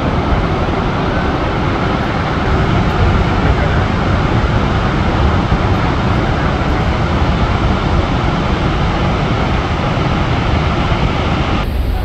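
Loud, steady roar of Niagara Falls' falling water, heaviest in the low end. It drops away abruptly just before the end.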